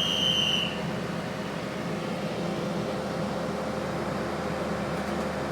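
Steady hum inside a 3100-class diesel railcar standing at the platform: engine and air-conditioning running. A high steady tone cuts off under a second in.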